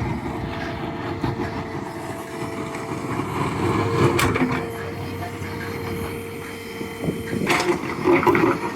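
JCB 3DX backhoe loader's diesel engine running steadily, with a steady whine over it that stops near the end, followed by a brief louder clattering.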